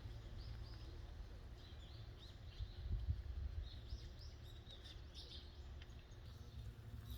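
Small birds chirping: a scatter of short, high calls, over a steady low rumble.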